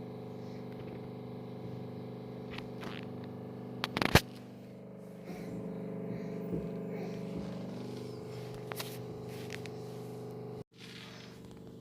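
A steady low mechanical hum with scattered knocks and scraping over it, the loudest a sharp double knock about four seconds in. The sound cuts out abruptly near the end.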